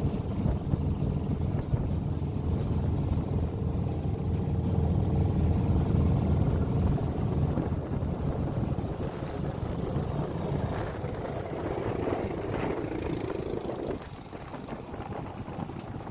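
A small passenger boat's engine running steadily, loudest in the first half and fading off near the end.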